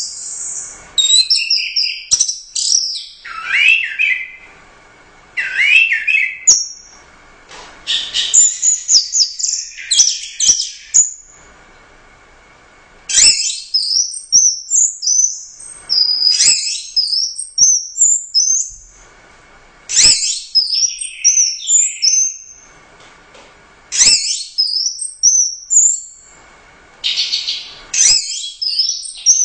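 Orange-headed thrush singing in runs of rapid, varied high whistled and warbled notes, each run a few seconds long and broken by short pauses, with one longer pause near the middle.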